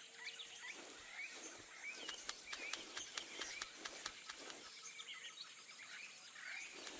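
Faint nature ambience with scattered short bird chirps and light clicks.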